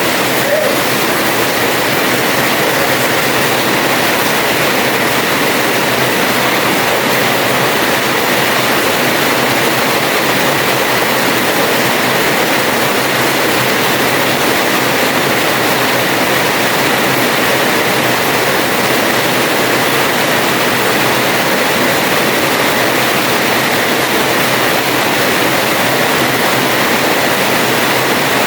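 Heavy rain pouring steadily onto a house terrace: a dense, even hiss with no let-up.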